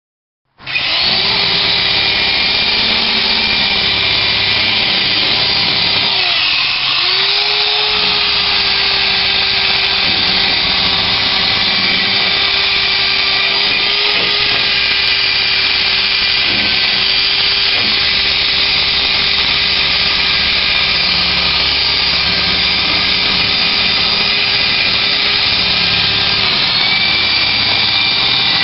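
Electric drill spinning a wire brush against the back of a 1929 Model A Ford pickup's cab, cleaning out the small rounds and grooves before painting. It starts suddenly about half a second in and runs steadily. Once, about a quarter of the way through, its motor note sags and comes back.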